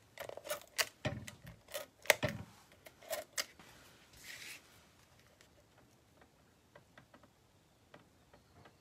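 Paper and card stock being handled and pressed on a craft table: a quick run of light taps and clicks for the first three and a half seconds, a short rustle about four seconds in, then only faint ticks.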